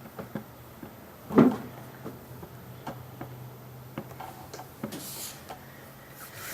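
Scattered light taps and clicks from a toddler handling Play-Doh on a tabletop, with one louder short knock about a second and a half in.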